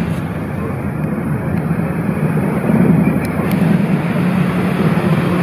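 A steady low engine drone under a wash of outdoor noise, swelling slightly about three seconds in.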